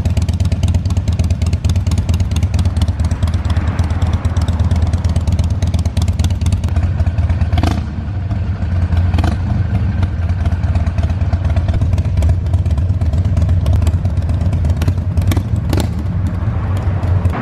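Harley-Davidson Sportster 1200's air-cooled V-twin running steadily through Rush slip-on mufflers with 1.75-inch baffles, echoing under a bridge, with a few sharp clacks.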